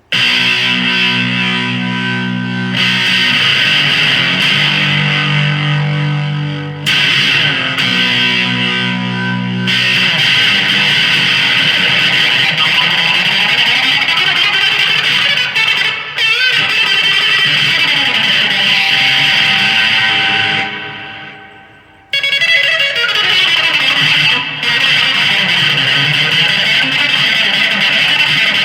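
Gretsch 5435T electric guitar played through an amplifier: sustained chords changing every few seconds, dying away about 21 seconds in, then the playing starts again.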